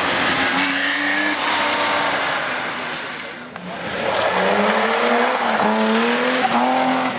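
Classic rally cars at full effort on a tarmac stage: a Porsche 911's flat-six pulling away, then, about halfway through, a BMW 3 Series rally car accelerating hard out of a hairpin, its engine note climbing in pitch several times in quick steps.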